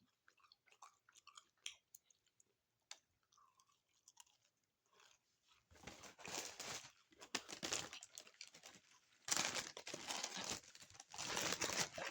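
Close-up chewing of a crunchy Doritos Locos taco with its hard nacho-cheese-flavoured shell: faint wet mouth clicks at first, then loud crunching in four bouts from about halfway in.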